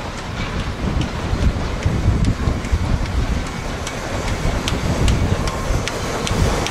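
Narrow-gauge steam locomotive running towards the listener with a short train of wagons, drawing slightly louder, with scattered sharp clicks from the wheels and track. A low rumble of wind buffets the microphone underneath.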